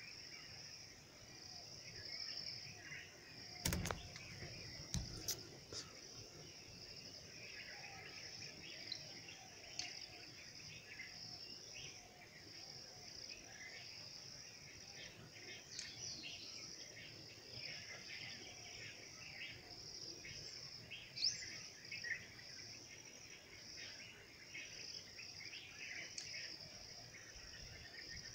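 Steady, high-pitched chorus of insects with scattered short bird chirps. Two sharp knocks come about four and five seconds in.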